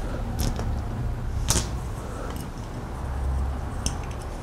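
A few light clicks of small metal parts handled by hand as a locking collar is fitted onto a servo motor encoder, the sharpest about one and a half seconds in, over a low steady hum.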